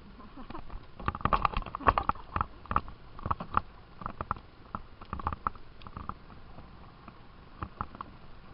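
Canoe paddling: a quick irregular run of light knocks and taps from the paddles working against the canoe and the water, thinning out after about six seconds.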